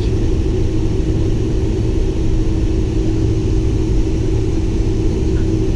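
Cabin sound of a Boeing 747-400 Combi taxiing: the General Electric engines' steady hum at low thrust over a continuous low rumble, heard through the fuselage from a seat over the wing.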